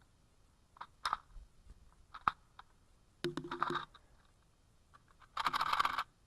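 Metallic clicks and short rattles of an AK-pattern rifle's magazine and cartridges being handled: a few separate clicks, then two brief rattling bursts, the second near the end. This is the handling of a magazine that is misfeeding.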